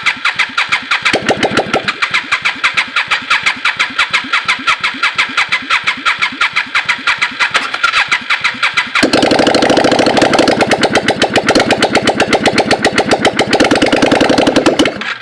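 Yamaha XV535 V-twin engine running with no exhaust pipes, loud and pulsing with even, rapid beats. About nine seconds in the sound turns fuller and deeper, then it cuts off suddenly near the end.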